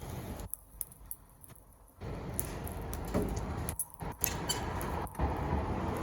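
Wood fire crackling, with scattered sharp pops and snaps over a low rushing noise that cuts in and out.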